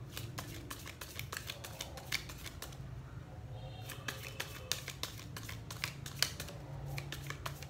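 A deck of playing cards being shuffled in the hands: a quick, irregular run of crisp clicks as cards slap against the pack, with a brief lull about three seconds in.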